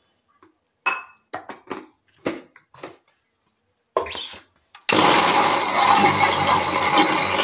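A few clinks and knocks as the steel jar is set on the mixer grinder's base and its lid fitted. About five seconds in, the electric mixer grinder switches on and runs loudly and steadily, grinding peanuts and herbs with water into a chutney.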